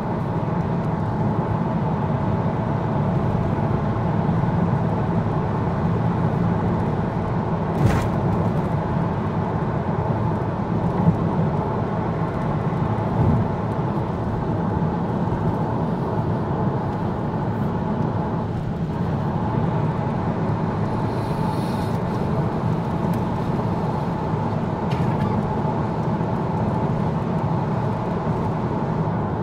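Steady road and engine noise heard inside a car's cabin while cruising on a motorway, with a single brief knock about eight seconds in.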